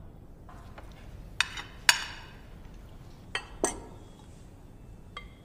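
Cutlery and dishes clinking at a dinner table: a handful of sparse, light clinks, one about two seconds in ringing briefly like a spoon against a plate or glass.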